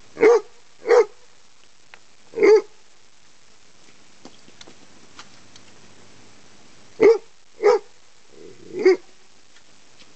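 Chesapeake Bay Retriever barking at a snake: six single barks, three in the first few seconds, then a pause of about four seconds and three more.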